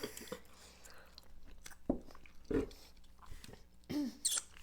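Close mouth sounds of a thick milkshake being sucked through a straw: a few short wet pops and slurps, with a brief hum about four seconds in.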